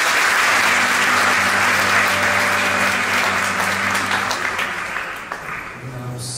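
Theatre audience applauding, the clapping thinning out and fading near the end, with faint steady low tones underneath.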